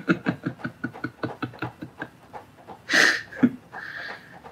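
A man laughing: a quick run of short chuckles that tails off after about two seconds, followed by a louder breathy burst about three seconds in.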